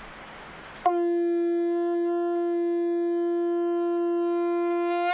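A conch shell blown in one long, steady note that starts about a second in and cuts off abruptly at the end.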